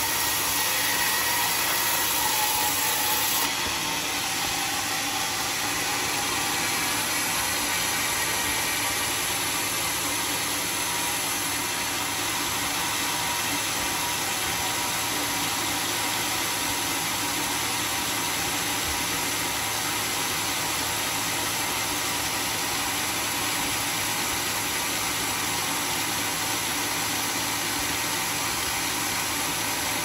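Sawmill machinery running steadily, a constant noisy hum that dips a little about three and a half seconds in.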